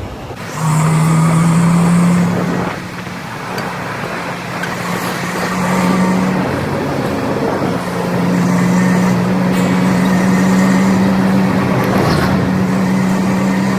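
A vehicle engine running while under way, with a steady humming note that shifts in pitch a few times, over wind and road noise.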